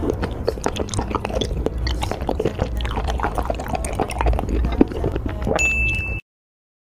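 Close-miked wet chewing and slurping mouth sounds of a chewy, sauce-coated octopus tentacle: many small sticky clicks and smacks. Near the end a short bright ding sounds, and the audio cuts off abruptly.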